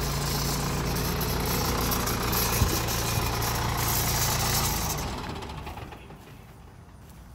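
Kubota M7040 tractor's four-cylinder diesel engine running steadily, with one sharp knock about two and a half seconds in; the engine sound falls away about five seconds in.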